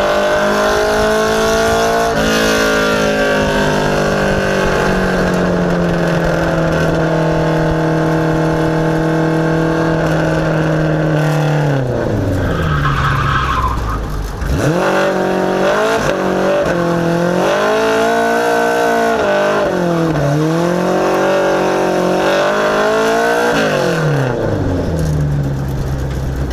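Ministock race car's engine heard from inside the car, winding down for about ten seconds, then a short tyre squeal as the car spins a small victory doughnut. The engine is revved up and down several times before settling to idle near the end.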